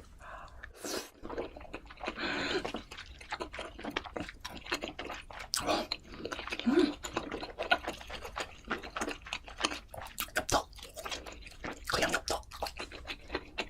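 Close-miked chewing and wet mouth sounds of someone eating large bites, full of irregular crisp clicks and smacks.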